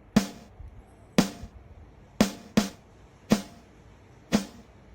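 Sparse drum beat in background music: single drum hits about once a second, each with a low thump and a short decaying tail, with one extra hit just after the second and a half mark.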